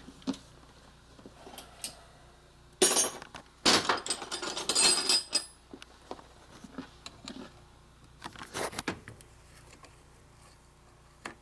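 Hand tools and metal transmission parts clinking and clattering as a four-speed gearbox is taken apart: scattered clicks and taps, a burst of ringing metallic clatter about three seconds in lasting a couple of seconds, and a few more sharp clinks near the end.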